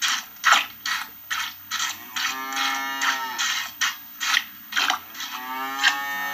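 Hand-milking a cow: milk squirts hit a pail in a steady rhythm, about two to three a second. The cow moos twice, each a long drawn-out call, the second starting near the end.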